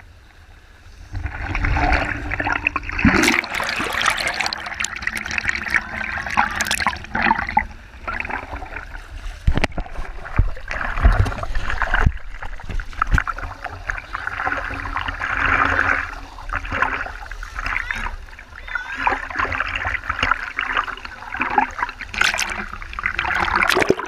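Waterfall stream water rushing and splashing, coming up loud about a second in, with a few sharp knocks.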